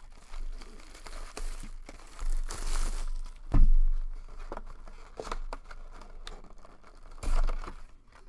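Plastic shrink-wrap being torn and crinkled off a cardboard trading card box, with cardboard rustling from handling the box. A heavy thump about three and a half seconds in is the loudest sound.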